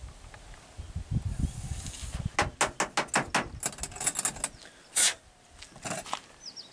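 A quick run of small clicks and rattles as syringe, dart and kit parts are handled, then a short, loud hiss about five seconds in.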